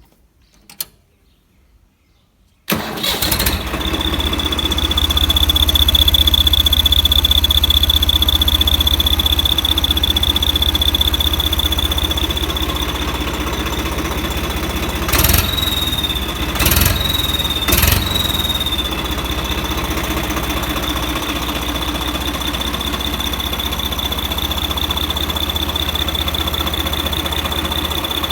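Turbocharged engine starting and then running steadily with a high, constant turbo whistle over a low engine hum. Midway through, three short loud bursts briefly bend the whistle's pitch.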